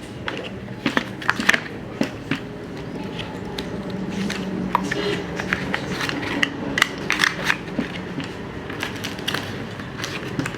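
Scattered clicks and knocks from handling a Tisas Zigana PX9 pistol and its box and accessories, bunched about a second in and again around six to seven seconds in, over steady background noise.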